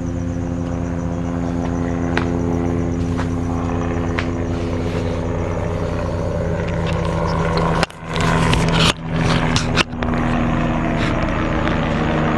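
2016 Honda Civic engine idling steadily just after a cold start. About eight seconds in, a louder rushing noise cuts in and out abruptly for about two seconds over the idle.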